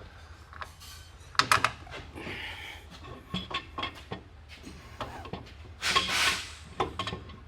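Irregular metallic clinks and knocks of differential parts and tools being handled and fitted together, with a short scraping rush about six seconds in.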